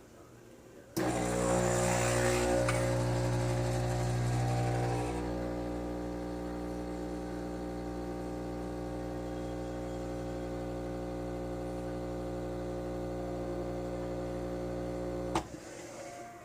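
A Nespresso Gran Lattissima espresso machine's pump running as it makes a drink. It starts abruptly with a steady electric hum and some hiss for the first few seconds. It runs evenly for about fourteen seconds, then stops with a click.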